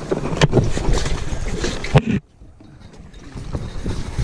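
Wind rumbling on the microphone, with a few sharp knocks about half a second in and at two seconds, then a brief muffled drop.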